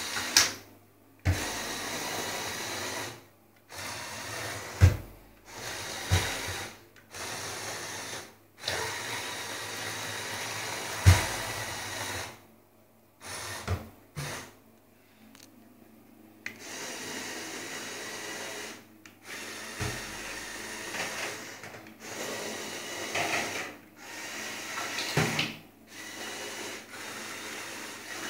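Lego RC boat's small electric motor running in bursts, cutting in and out every second or two, with a few sharp knocks.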